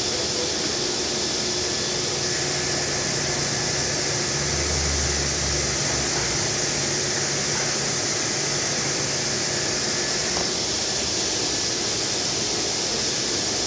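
Steady hiss of a granite CNC machine running, with a faint low hum joining it for several seconds.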